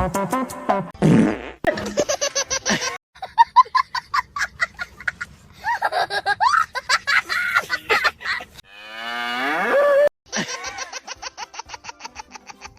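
A series of comic fart noises: rapid sputtering runs, and one long drawn-out fart rising in pitch about nine seconds in.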